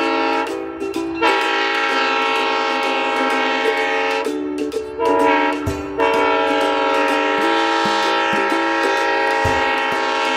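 Diesel locomotive air horn sounding long held blasts, a chord of several steady tones, broken briefly about a second in and again around the middle.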